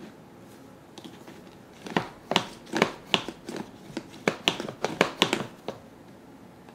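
Hard plastic parts of a bunny-shaped toy dango maker clicking and clacking as they are worked by hand. About two seconds in comes an irregular run of roughly fifteen sharp clicks over nearly four seconds.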